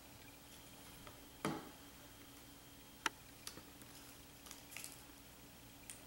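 Quiet handling of dry leaves and paper on a craft table: a soft thump about one and a half seconds in, a sharp click around three seconds, and a few small dry crackles near the end as a dry leaf is pressed onto the paper.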